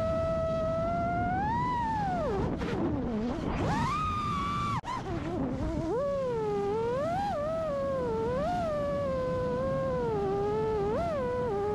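Brushless motors and propellers of an FPV freestyle quadcopter (Cricket Hypetrain 2306 motors) whining in flight, heard from the onboard camera, the pitch rising and falling with the throttle. There is a brief dropout about five seconds in.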